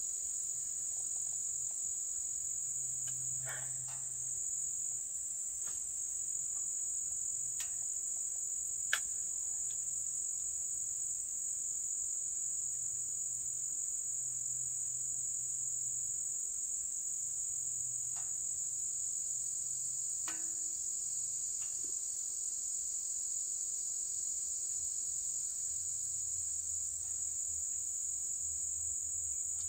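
Steady high-pitched chorus of summer insects chirring without a break, with a few faint ticks scattered through it.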